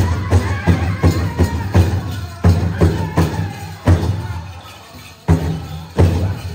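Powwow drum group playing a chicken dance song: a big drum beaten in a fast, even beat, with high-pitched group singing. Past the middle the beat thins to a few heavy strokes and drops off for about a second, then picks up again.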